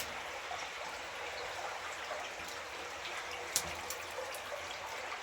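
Water trickling and dripping inside a narrow, low mine adit, a steady wash with scattered faint drips and one sharp click about two-thirds of the way through.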